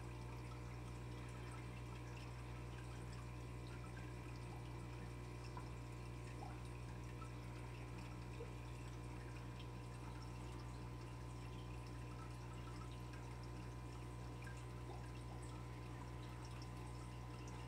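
Aquarium pump running with water moving in the tank: a steady low hum with faint trickling and a few small ticks.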